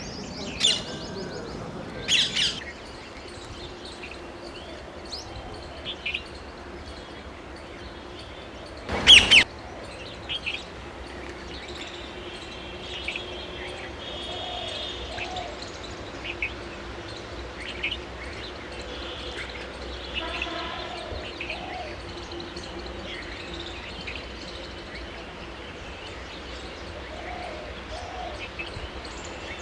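Rose-ringed parakeets calling: a few short, shrill calls, the loudest about nine seconds in, over scattered softer chirps.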